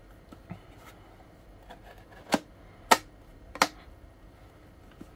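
Three sharp clicks about half a second apart, with quieter knocks and rubbing, as the gray metal case of a multimeter power supply is handled and pressed on in the hands.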